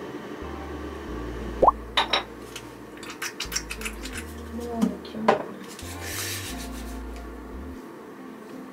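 Small plastic and glass skincare containers clicking and clinking as they are handled to take out face cream, with sharp clicks about two seconds in and a run of them from about three to five seconds. A short squeak comes just before the first clicks, and a brief soft rubbing hiss follows about six seconds in.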